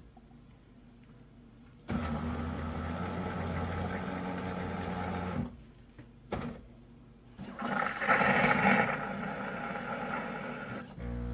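Terra Kaffe TK-02 super-automatic espresso machine running its latte cycle: its pump hums steadily for a few seconds and stops, then after a short pause a louder hissing, sputtering sound runs for a few seconds as the drink is dispensed.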